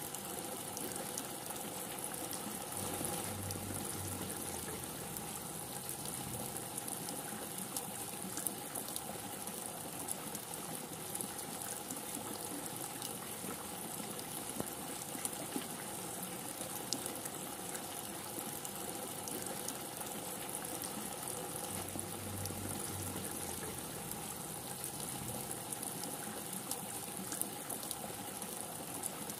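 Steady heavy rain: a dense, even hiss with scattered sharp drips.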